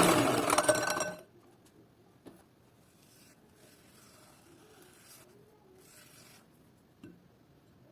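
Small electric kitchen appliance motor, likely a hand mixer beating the batter, running loudly and switched off about a second in. Faint handling and rubbing sounds follow, with two light clicks.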